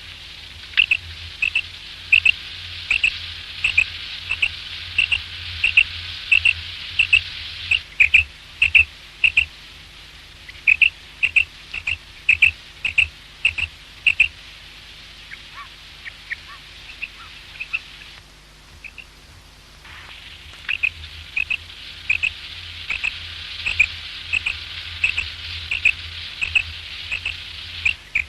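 Common quail calling over and over in short, sharp, high notes that come in quick groups, with the kind of call played to lure quail for hunting. The calls fade about halfway and pause briefly, then start again over a steady hiss and low hum.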